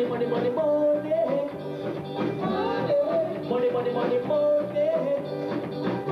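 Live band playing upbeat dance music with a steady beat.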